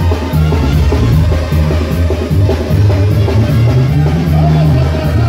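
Live banda sinaloense brass band playing an instrumental passage: a tuba bass line stepping between notes under brass and clarinets, with the drum kit keeping a steady cymbal beat of about three strokes a second.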